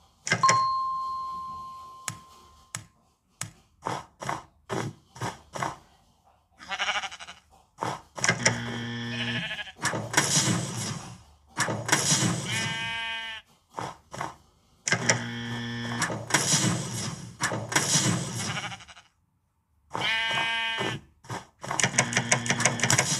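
A string of edited sound effects: a beep that fades out, a run of short clicks, then loud noisy effects and a sheep bleating twice with a quivering, falling pitch.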